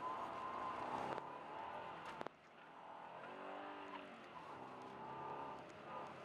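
Subaru Forester driving through deep snow, heard from inside the cabin: steady engine and tyre noise, with the engine note rising and falling a few seconds in. Two sharp knocks come about one and two seconds in.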